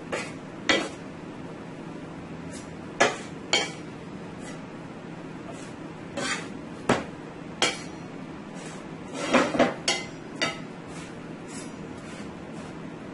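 Metal utensil clinking and tapping against a cast iron tawa as a sada roti is turned while it puffs up: about a dozen separate sharp clinks, with a quick cluster about nine to ten seconds in, over a steady low hiss.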